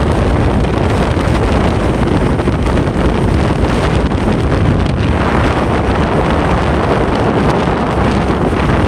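Wind buffeting the microphone on a motor scooter riding at speed, over the low hum of the engine and tyres on the road. The noise is loud and steady.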